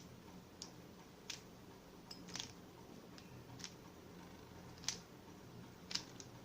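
Rubik's cube being turned through an algorithm: faint, irregular plastic clicks as the layers snap round, about one a second.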